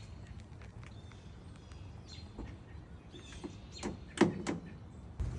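A few sharp clicks and knocks about four seconds in, over a faint background with light bird chirps.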